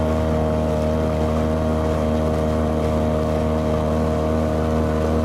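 Boat motor running at a steady speed while the boat is under way.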